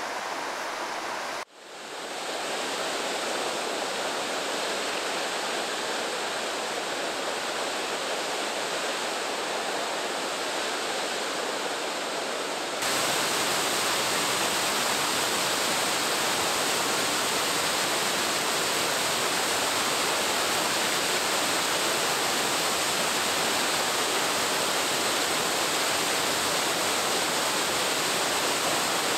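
Fast-flowing river water rushing steadily, an even hiss without rhythm. It drops out for a moment about a second and a half in, fades back up, and turns louder and brighter a little before halfway.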